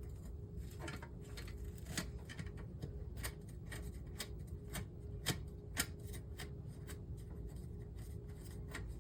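Light, irregular metal clicks and scrapes of the two small screws being worked out of a monitor circuit board's VGA cable connector, over a steady faint hum.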